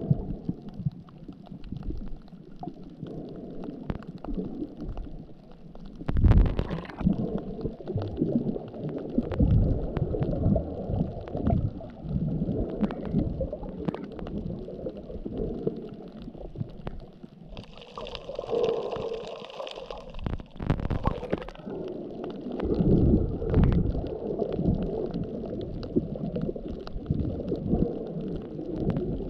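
Muffled underwater sound picked up through a camera's waterproof housing: low, uneven rumbling and gurgling of moving water with small knocks, and a brief stretch of hiss a little past the middle.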